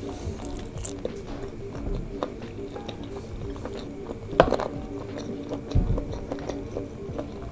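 Close-up chewing and mouth sounds of a person eating spicy boneless chicken feet and nori rice balls, over background music. About four and a half seconds in there is a sharp clink as a metal spoon hits the ceramic baking dish while scooping a rice ball.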